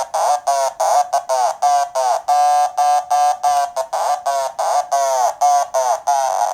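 Radiokoala PoodleGroomer Eurorack drum-synth module playing with no audio input, sequenced by a Korg SQ-1 gate: a fast run of short, buzzy synth notes, about three a second, each note's tone falling as it sounds.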